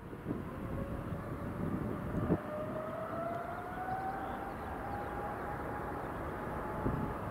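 Boeing 777-300ER's GE90-115B jet engines at the start of the takeoff roll: a distant rumble with a whine that rises slowly in pitch as the engines spool up. A single thump about two seconds in.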